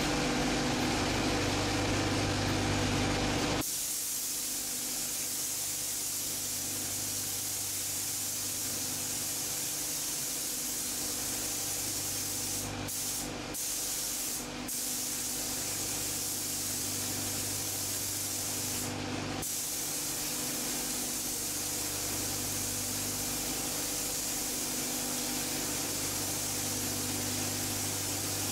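Compressed-air paint spray gun hissing steadily as paint goes onto a car body, over a steady low mechanical hum. The hiss sets in about three and a half seconds in and breaks off briefly four times.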